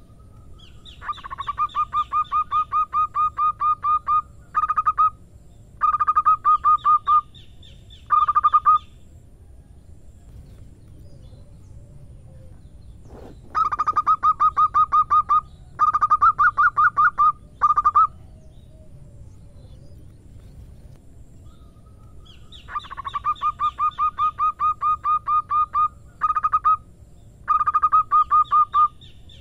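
Zebra dove (perkutut) singing three bouts of its staccato cooing song. Each bout opens with a long, quick run of notes, followed by a few shorter bursts, with pauses of several seconds between bouts.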